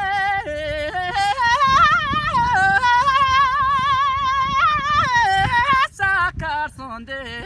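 A man singing a Tibetan folk song unaccompanied in a high, strong voice, holding long notes with a wavering pitch and quick ornamental turns. Near the end the line breaks into shorter notes and gets a little quieter.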